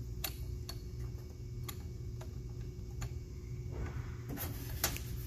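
Scattered light clicks and taps, about half a dozen at irregular intervals, from hands handling a plastic diesel crankcase breather housing while seating its speed sensor. A steady low hum sits underneath.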